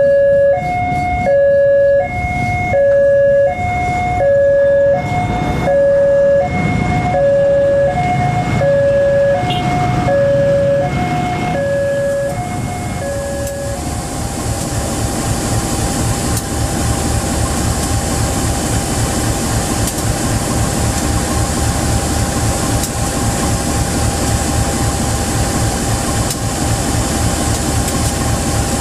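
Level-crossing warning alarm sounding its two alternating electronic tones, each held about half a second, until it stops about 13 seconds in. After that, the diesel engine of diesel-electric locomotive CC 203 02 03 runs steadily close by, a low rumble with a steady whine over it.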